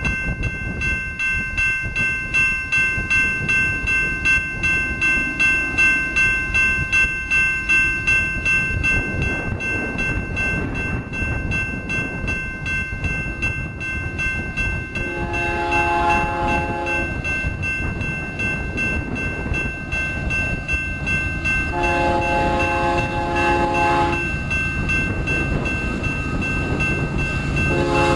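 BNSF diesel freight locomotives rumbling as the train approaches, with a multi-note air horn sounding two long blasts about 15 and 22 seconds in and starting a third near the end. A high, pulsing ringing is heard over the first third.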